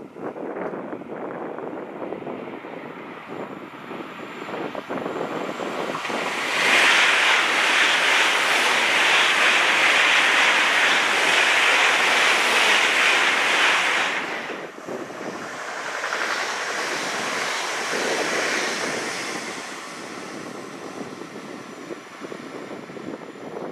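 An ICE high-speed electric train passing close by at speed: a loud rushing of wheels on rails and air that builds over several seconds and cuts off suddenly as the last car goes by about 14 seconds in. A fainter rushing swell follows and fades.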